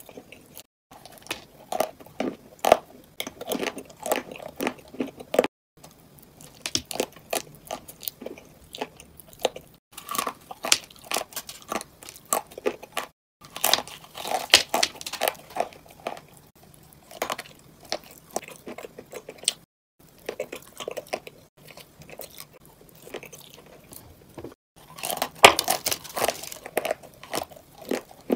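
Close-up biting and chewing of dry clay chunks: brittle, crumbly crunches in dense irregular runs. The sound drops to silence abruptly several times where the recording is cut.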